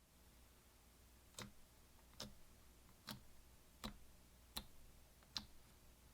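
Six light, sharp clicks at an even pace, about one every 0.8 seconds, starting a little over a second in.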